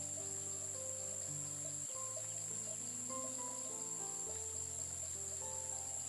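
Insects droning steadily at a high pitch, over soft background music of slow, held notes.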